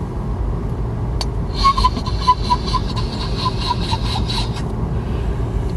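Squeaky-wheel sound effect: a run of short high squeaks, about four a second and slowing slightly, over a steady low car rumble, with a single click just before the squeaks start.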